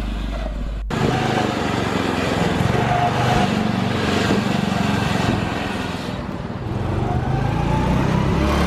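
Ride-on lawnmower engine running hard as the mower is driven, starting abruptly about a second in. The engine note dips around six seconds in, then rises again as it revs up.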